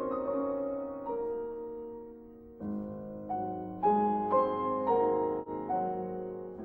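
Background piano music: calm, sustained notes and chords. The music thins out around two seconds in, then a new phrase of struck notes comes in.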